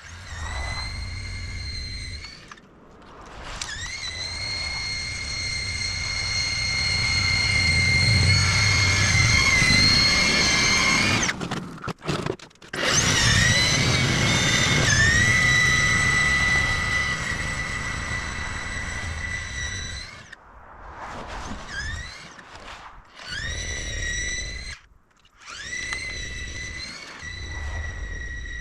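EGO 28-inch battery snowblower running, its motor rumbling under a loud high-pitched squeak that rises in pitch each time it spins up; it stops and starts again several times. The squeak is one the owner understands to be a common problem with this snowblower, appearing after a short amount of use.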